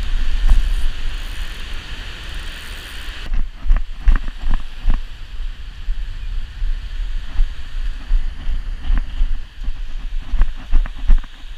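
Wind buffeting the microphone over the wash of surf, with a steady low rumble throughout. An even hiss for the first three seconds cuts off suddenly, followed by irregular short knocks and gusts.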